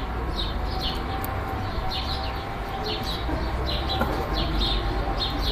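Sparrows chirping: short, high chirps repeating in little clusters several times a second, over a low steady rumble.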